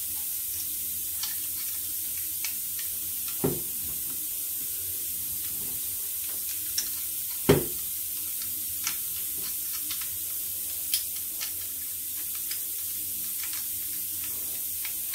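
Light clicks and two knocks, the second the louder, as a strip of staples is worked against the air stapler's magazine and will not go in. A steady hiss runs underneath throughout.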